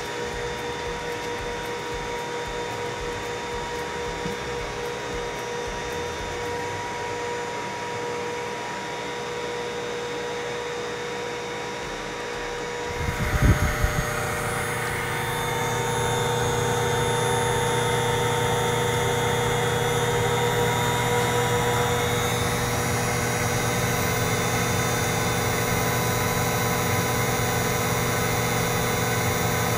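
Blower of a window water-test pressure rig running steadily with a constant whine, holding the sealed chamber under pressure for an ASTM E1105 test at the equivalent of 34 mph wind. A few knocks sound about 13 seconds in, after which the blower is louder and fuller.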